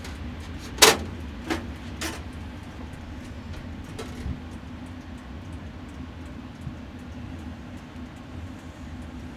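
Sharp metallic clanks of a wire broiler rack and grill handled with long cooking chopsticks. The loudest comes about a second in, two lighter ones follow within the next second, and a faint one comes near four seconds. A steady low mechanical hum runs under them.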